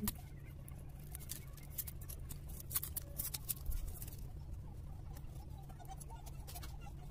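Small scratching and clicking of a utility knife cutting and prying open the casing of an anar (flower-pot firework), over a low steady hum.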